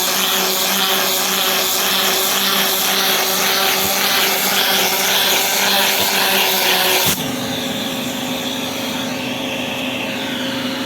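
Suction motor of a cleaning machine running steadily with a strong airy hiss. About seven seconds in, the sound changes abruptly: it becomes somewhat quieter with less hiss and a higher steady whine.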